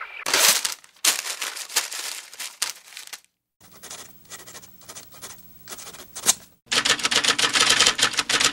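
Fast, dense sharp clicking and tapping in spells: loud at first, then softer and sparser with a faint low hum in the middle, then loud and dense again about two-thirds of the way in.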